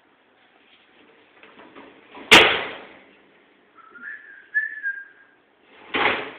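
Metal baking tray and oven rack being slid into a built-in oven: one loud metallic clank with a ringing tail about two seconds in, a brief wavering high whistle in the middle, and a second, softer clunk near the end.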